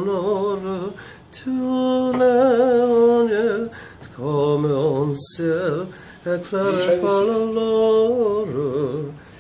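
A man singing French opera unaccompanied, in a mock-operatic style. He holds long notes with wide vibrato across several phrases, with short pauses between them.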